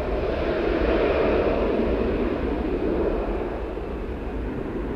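Twin-engine Boeing 737 jet airliner at takeoff thrust as it lifts off and climbs away: a steady rush of jet engine noise that slowly grows fainter.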